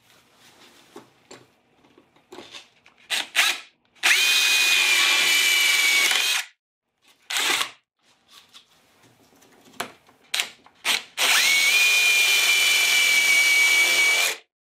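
Cordless drill with a 1-inch spade bit boring through DensShield tile backer board. It runs at a steady whine in two runs of two to three seconds each, with a brief burst between them and a few light knocks in the pauses.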